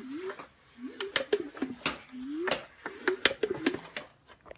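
Three-cylinder powerhead of a 1995 Force 90 hp outboard being spun over, giving sharp irregular clicks with short rising squeaks between them. The clicking is the funny noise that makes the owner think the motor probably needs a rebuild.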